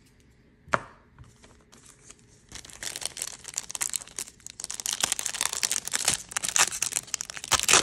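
Japanese Pokémon 151 foil booster pack being handled and torn open, its wrapper crinkling densely from about two and a half seconds in. A single sharp click comes just under a second in.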